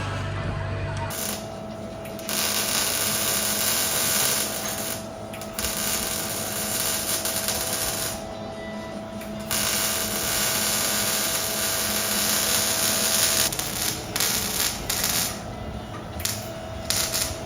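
A handheld power tool running in spells of a few seconds with short breaks, with a steady high whine under the noise until near the end, where it turns to shorter, broken bursts.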